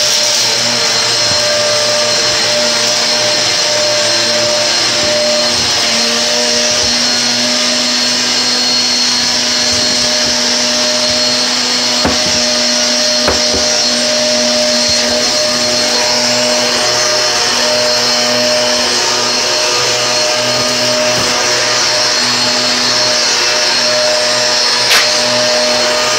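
Electric motor running steadily with a constant whine over a loud hiss, with a single knock near the end.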